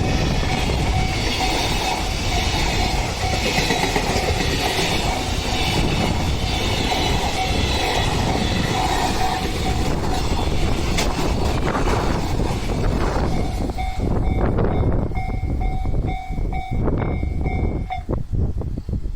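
A train passing a Japanese level crossing, its wheel and rail noise loud and then dying away about two-thirds of the way through. The crossing's electronic warning bell rings over it in a pulsing tone and stops near the end.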